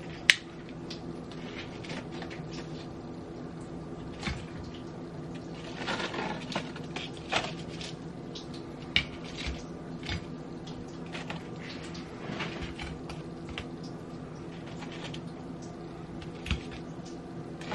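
Kitchen tongs clicking and knocking against a ceramic dish as fried egg rolls are set down in it. There is one sharp click just after the start and scattered softer taps after it, all over a steady low hum.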